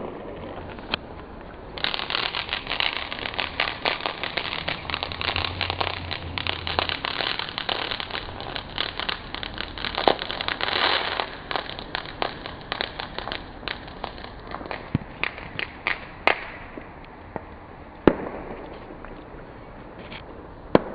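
Fireworks going off: a dense run of rapid crackling pops that lasts from about two seconds in to about sixteen seconds, followed by a few single bangs.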